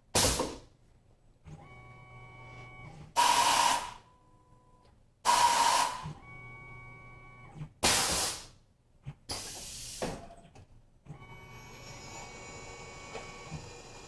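Tormach PCNC 1100 CNC mill's automatic tool changer cycling: five short, loud hisses of compressed air, with steady motor whines between them as the carousel and head move. About three seconds before the end, the spindle starts and runs steadily with flood coolant spraying.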